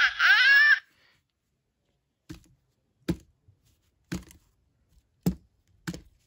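Battery-powered Dan Dee push n' pop plush toy: its electronic sound effect ends with rising, warbling tones within the first second. Then come five sharp clicks about a second apart as the toy is pressed down by hand.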